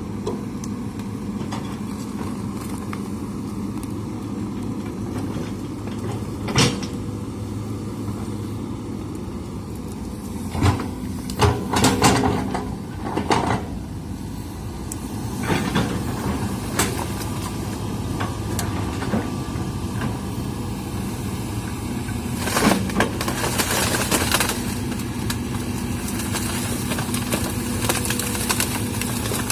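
Hitachi excavator's diesel engine running steadily, with sharp knocks and clatter now and then, a cluster of them in the middle.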